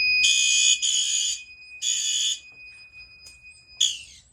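Fire alarm horns sounding three short buzzy blasts as a walk-test signal, over a steady high-pitched electronic tone that cuts off near the end.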